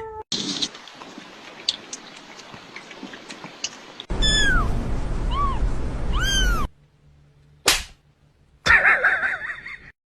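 Kitten meowing: three short, high-pitched meows, each rising then falling, over a hissy background. More cries follow near the end.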